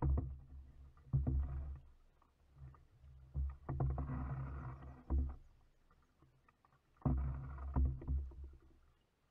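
Kayak paddling: about four bursts of paddle strokes splashing and dripping, with deep thumps and small knocks, separated by quieter gaps.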